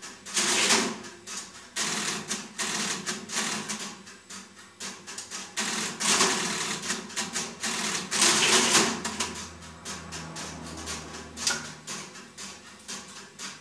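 NEC NC100 crossbar telephone exchange at work: its relays and crossbar switches clicking and clattering rapidly, in several louder bursts of chatter.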